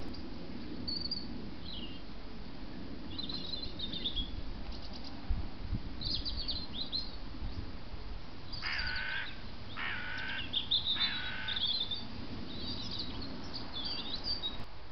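Three harsh, crow-like caws, each about half a second long and close together, over scattered high chirps of small birds.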